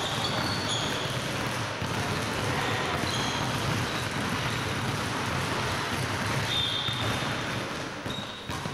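Many basketballs dribbled at once on a hardwood gym floor, making a dense clatter of overlapping bounces. Short high sneaker squeaks cut through now and then. The dribbling thins out near the end.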